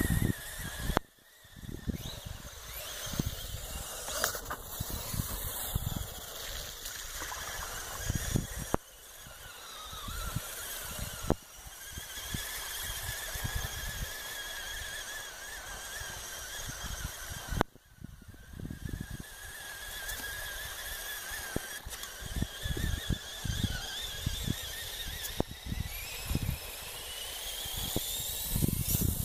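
RC Clodbuster monster truck's electric drive whining, with a high pitch that wavers as the throttle changes and briefly drops away about three times. Wind buffets the microphone with a gusty low rumble.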